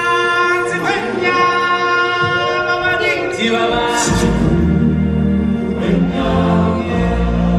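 Live stage-show music: a choir of voices holding long sung notes, with a deep bass entering about halfway through.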